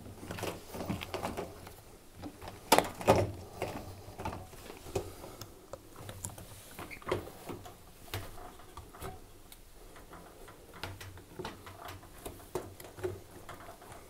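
Handling sounds of a rubber washing machine door seal being worked by hand onto the rim of the tub: irregular soft knocks, rubs and clicks, loudest about three seconds in.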